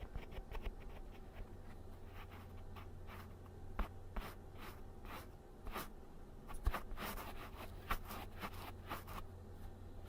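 Fabric rustling and scraping against a close microphone in short, irregular brushes, with a few soft knocks and a steady low hum underneath.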